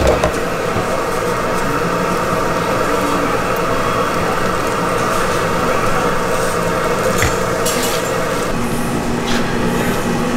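Food frying and sizzling on a hot street-stall griddle, with a few sharp clicks of metal utensils about seven to nine seconds in.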